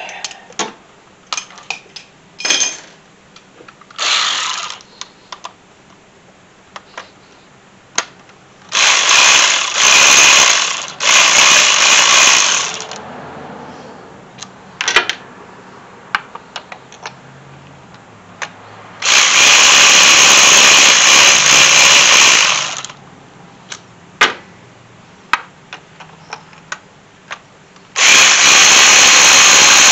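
Cordless electric ratchet spinning a spark-plug socket on an extension in several runs: two short ones, a longer one of about four seconds near the middle, and another near the end. Scattered clicks and knocks of hand tools and sockets come between the runs.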